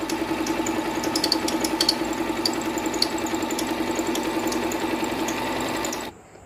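Singer-made Monica Merritt electric sewing machine running steadily while sewing a wide zigzag stitch: a motor whir with a fast, even clatter of needle strokes. It stops abruptly about six seconds in.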